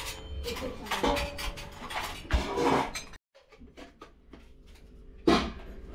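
Household clatter of dishes and utensils clinking and knocking. The sound cuts out briefly about three seconds in, then quieter clicks follow, with one sharp knock near the end.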